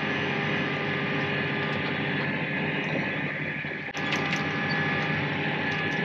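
A 360-horsepower tractor's engine running steadily while driving, heard from inside the cab as a steady hum.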